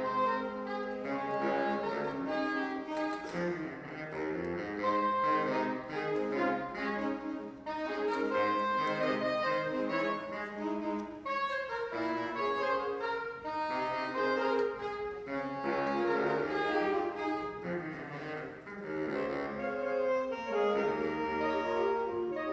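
Saxophone ensemble of about nine saxophones playing a concert piece in harmony, with quick moving notes over held low notes.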